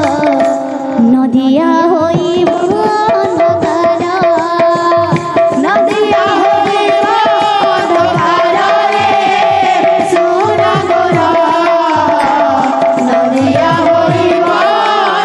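Devotional kirtan music: hand-drum beats under a melodic line that bends up and down, over a steady held note.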